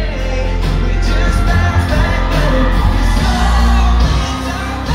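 Live country-pop band playing through a club PA: a male lead singer over electric guitars, drums and a heavy bass.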